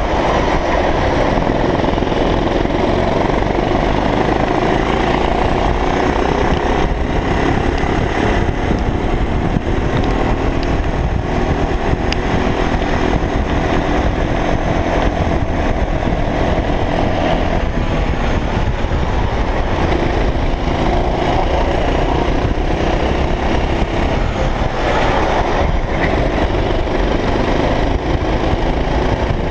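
Racing kart engine heard from the driver's seat at racing speed, its pitch rising and falling repeatedly as the kart accelerates out of corners and lifts into them, over a constant low rumble of vibration and wind on the microphone.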